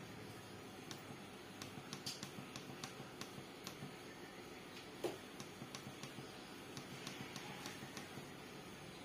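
Faint, quick clicks from the front-panel keys of a Mindray BC-2600 hematology analyzer as its stored results are paged through, about two or three a second, with one louder click about five seconds in.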